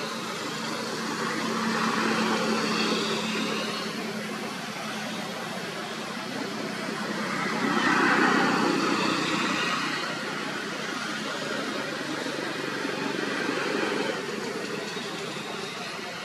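Steady background engine noise of passing vehicles, swelling louder and fading away about three times.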